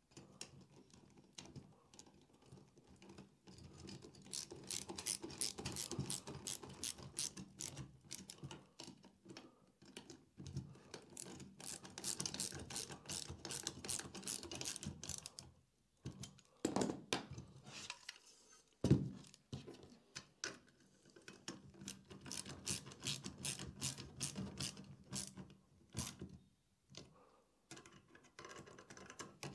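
Ratcheting screwdriver clicking in runs of rapid clicks as bolts are tightened against nylock nuts on a CNC plate's wheel assembly, with a couple of louder knocks of tools on metal partway through.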